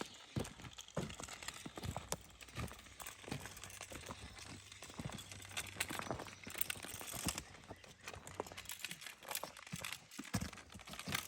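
Rolling magnetic sweeper pushed over the ground, with irregular crunches and clicks as it rolls and picks up old nails and scrap metal.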